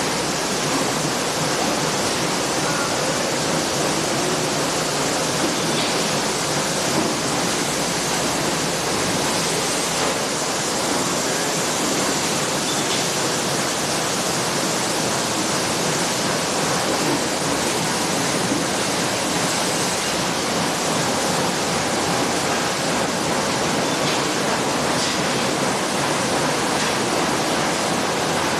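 Steady, loud, even hiss-like din of a metalworking factory floor, with no individual strokes or impacts standing out.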